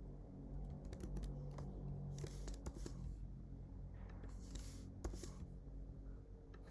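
Faint typing on a computer keyboard: scattered, irregular key clicks over a steady low hum.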